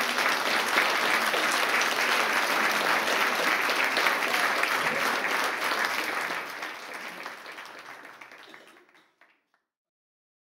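Audience applauding, a dense steady clapping that dies away after about six seconds and stops about nine seconds in.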